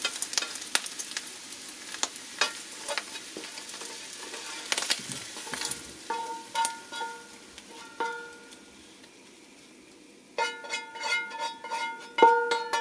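A spatula scraping and clicking against a frying pan as fried Jerusalem artichoke slices with egg are pushed out onto a plate, with the hot food still sizzling. About ten seconds in, plucked-string background music starts.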